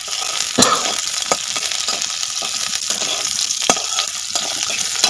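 Chopped onions and cumin seeds sizzling steadily in hot oil in a steel kadai, stirred with a steel spatula that scrapes and clinks against the pan a few times.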